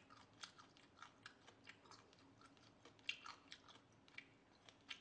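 Faint, close-miked chewing: soft irregular mouth clicks and smacks, a few each second, of a person eating with her mouth closed.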